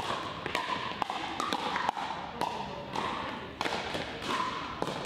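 Pickleball rally: a quick, irregular run of sharp pops as paddles strike the plastic ball, echoing in a large gym hall.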